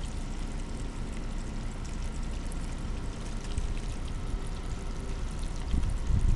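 Water running steadily from the open end of a garden hose and splashing onto wet ground, with a few low thumps near the end.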